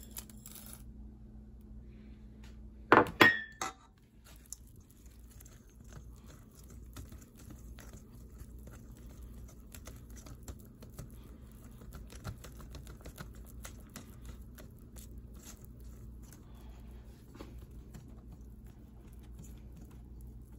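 Whisk stirring pancake batter in a stainless steel mixing bowl, its wires lightly ticking against the bowl's sides. About three seconds in there is a quick run of loud clinks of the plate against the steel bowl, which rings briefly.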